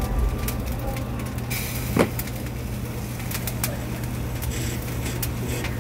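Light clicks and clinks of raw pork belly slabs and wire baskets being handled on a rotisserie grill drum, with one stronger knock about two seconds in, over a steady low hum.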